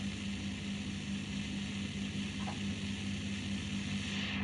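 Steady hiss with a low, constant electrical hum underneath; no distinct event.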